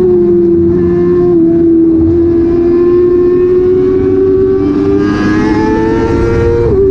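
Big motorcycle's engine running at high revs, a steady high-pitched tone held through a bend that dips slightly about a second and a half in and climbs again near the end, with wind rush underneath.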